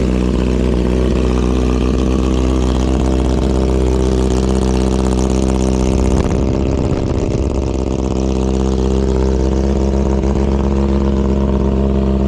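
2009 Kawasaki Ninja ZX-6R's inline-four engine idling steadily through a catalytic-converter-delete exhaust with a straight, baffle-less muffler. There is a brief waver in the engine note about six seconds in.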